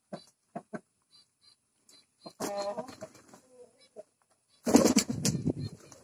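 Pigeons feeding: a few short taps early on, a pigeon's coo about two and a half seconds in, then a loud close flurry of flapping wings and feathers near the end.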